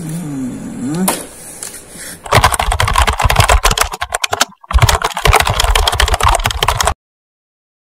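Rapid keyboard-typing sound effect for text being typed onto a title card: a dense run of quick clicks with a short break in the middle, cutting off suddenly into silence. Before it, a fainter gliding sound.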